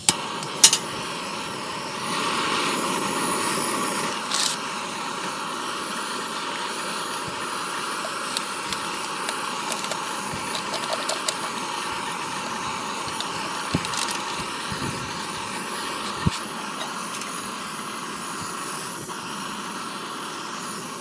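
Backpacking canister gas stove burning under a pot, a steady even rushing sound, with a few small clicks and clinks of metal cookware on top.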